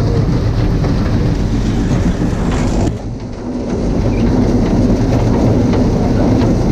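Farm tractor running and driving, a steady loud engine rumble with some rattling, easing off briefly about three seconds in before picking up again.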